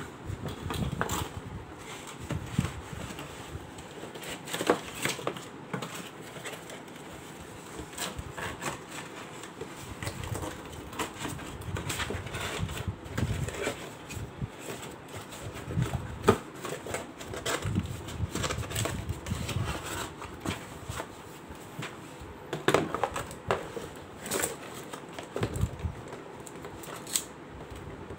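Cardboard packaging and plastic wrap being handled: irregular crackling and rustling of cardboard, with sharp knocks now and then.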